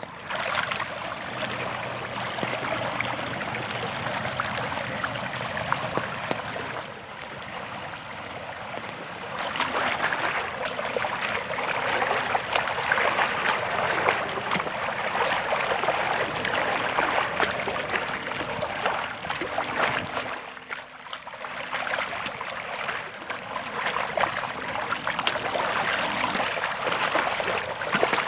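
Muddy rainwater runoff rushing fast down a flooded channel across a grassy yard: a steady rush of moving water, growing louder about ten seconds in.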